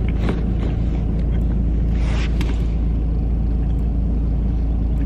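Steady low rumble of a car, heard from inside the cabin, with a few light rustles near the start and about two seconds in.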